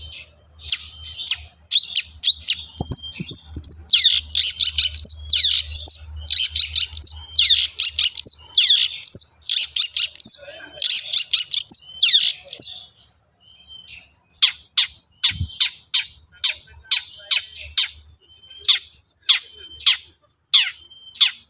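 Long-tailed shrike (pentet) in full song: a fast, harsh, scratchy chattering run of notes, then after a short pause about halfway through a series of separate sharp falling call notes, roughly two a second.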